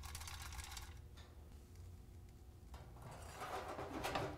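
Dry wood chips rattling as they are poured into a small metal smoker chip basket. About three seconds in, the basket scrapes as it slides into the smoker's chip port and seats with a click.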